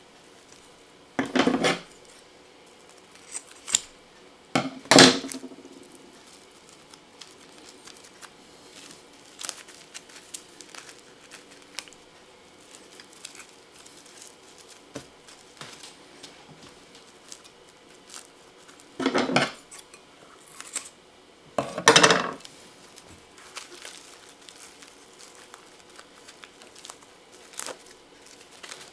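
Four clunks and clatters of a ceramic serving dish on a wooden cutting board: two in the first five seconds and two more around twenty seconds in. Between them comes faint rustling and crinkling as plastic wrap is peeled off cooked chicken breasts.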